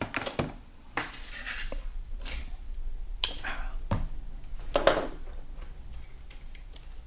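Handling noises: a few separate knocks and clatters with brief rustling between them.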